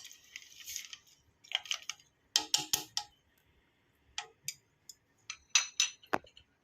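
Dried herbal medicine (leaves and pieces of wood) being handled: a brief rustle at the start, then a scattered series of sharp clicks and clacks in small clusters.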